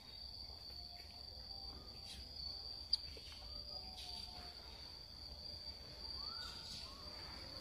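Crickets trilling steadily at a high pitch, with a few faint short calls about six seconds in and a small click about three seconds in.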